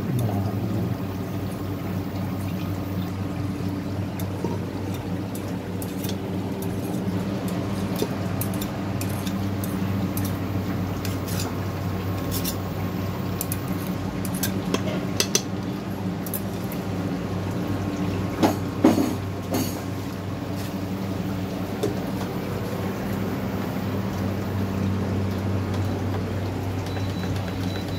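Onions scraped off a stone chopping board into a pressure cooker of mutton, with scattered clicks and clinks of a knife and wooden spatula against the board and the cooker's metal rim, a louder cluster of clinks about two-thirds of the way through. Underneath, an induction cooktop hums steadily.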